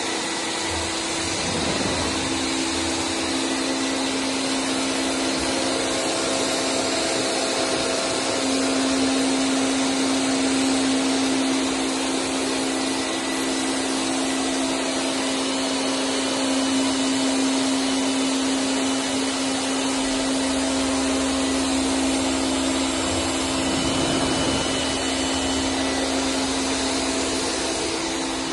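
VOLTER 4020 CNC router milling a plastic sheet: the spindle and cutter run steadily, a constant rushing noise with a steady whine under it.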